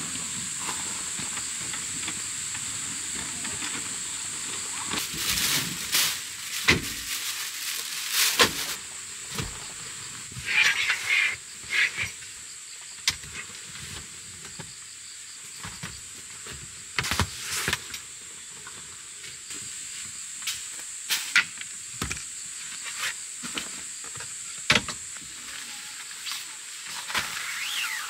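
Scattered clicks, knocks and rustles as folding camp-table panels and bedding are handled, over a steady high hiss.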